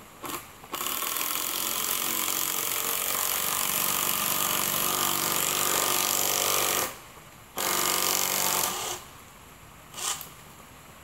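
Power drill driving screws into the greenhouse's wooden frame: one long run of about six seconds, a pause, then a shorter run of about a second, with brief trigger blips at the start and near the end.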